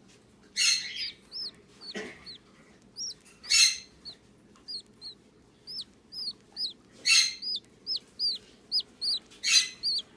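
Six-day-old cockatiel chick peeping: a run of short, high chirps that fall in pitch, broken by four louder raspy calls.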